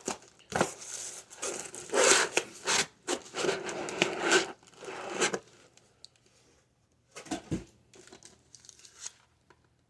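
Packaging being torn and crinkled by hand: a run of noisy rips and rustles for about five seconds, then a few fainter rustles later on.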